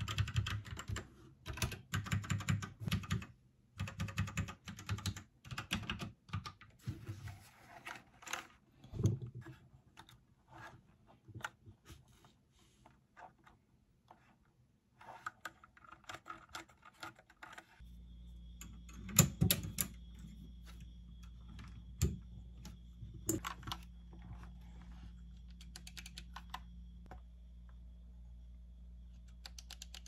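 Typing on an Ajazz K870T mechanical keyboard with Ajazz Red linear switches: fast, dense key clacks for the first several seconds, thinning to scattered keystrokes. A little past the middle a steady low hum sets in under occasional single clicks.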